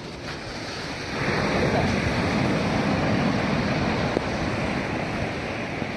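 Sea surf breaking and washing up the sand, swelling about a second in.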